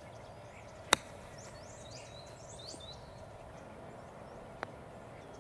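Small birds chirping faintly in a short run of high chirps over quiet open-air ambience, with one sharp click about a second in and a much fainter click near the end.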